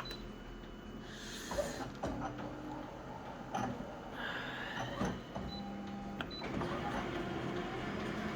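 Photocopier running: motors whirring in short spells with mechanical clicks and a few short high beeps.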